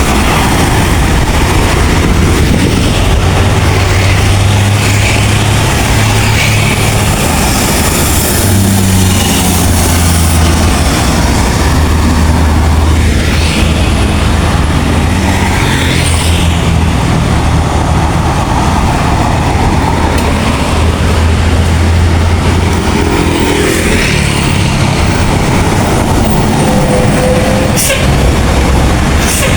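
Road traffic with large diesel buses passing close by. The engines make a steady low drone that rises and falls as each vehicle goes past, over tyre and road noise, with a couple of short sharp sounds near the end.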